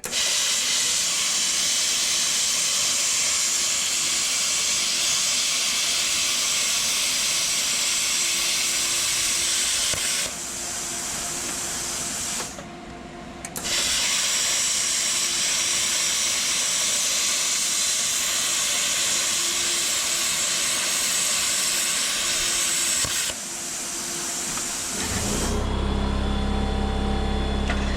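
Plasma cutter set to 25 amps cutting steel, its arc and air jet giving a loud, steady hiss. The hiss breaks off for about a second near the middle and starts again, then fades near the end as a low steady hum comes on.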